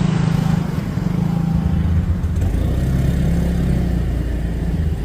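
A bus sounding loud and steady, with low tones that shift in steps every second or so.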